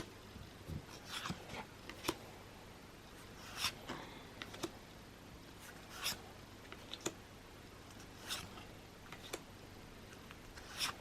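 Pokémon trading cards from a freshly opened booster pack being slid one by one off the stack, each a short, faint papery swish about every second or two.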